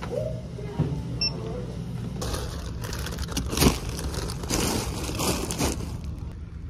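A short electronic beep from a handheld barcode scanner about a second in. From about two seconds in, plastic grocery bags and packaging rustle and crinkle in repeated bursts as groceries are handled, over a steady low rumble.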